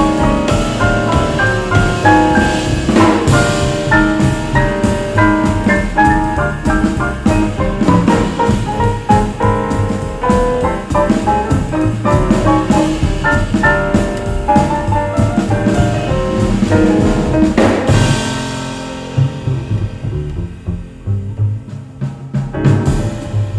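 Jazz played back: piano and drum kit over a walking bass, dense and steady until about three-quarters of the way through, when it drops to a quieter, sparser passage carried by the double bass.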